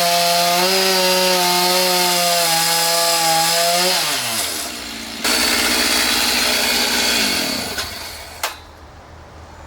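Stihl two-stroke chainsaw running at high revs with a steady, high engine note. About four seconds in the revs drop, then the saw is run up hard again briefly before its note falls away near the end, followed by two sharp knocks.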